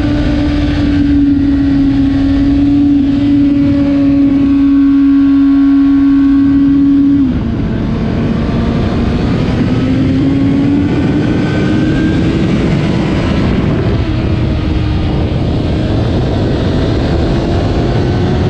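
Stock 2008 Kawasaki ZX-10R's inline-four engine at high revs on track, heard from onboard over wind rush. Its note holds steady for about seven seconds, drops suddenly with a dip in loudness, then climbs slowly and evenly as the bike pulls again.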